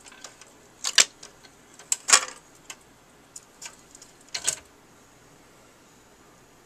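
Magnavox automatic record changer cycling to play a 45: a series of mechanical clicks and clunks, the loudest about one and two seconds in and another about four and a half seconds in.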